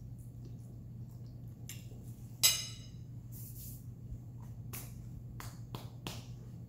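Eating at close range: small mouth clicks, a sharp ringing clink about two and a half seconds in, then a few short dull knocks as a hand pats the upper back. A steady low hum runs underneath.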